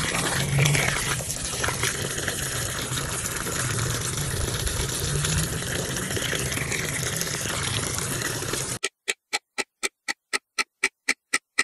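A stream of water pouring and splashing into a muddy puddle around a newly planted lemon seedling. About nine seconds in it cuts off, and a clock sound effect starts ticking, about four ticks a second.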